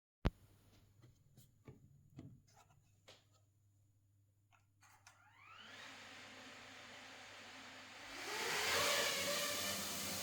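A sharp click, then a few faint clicks and taps. About five and a half seconds in, the DJI Mini 3/4 Pro drone's motors spin up with a rising whine and settle into a steady whir. About eight seconds in, the propeller noise swells much louder and holds as a steady whirring hiss with an underlying hum.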